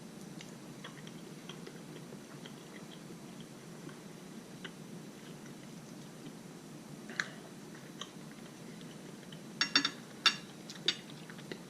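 A person chewing a bite of cooked bluegill, with small wet mouth clicks scattered through. About ten seconds in there is a quick cluster of louder clicks.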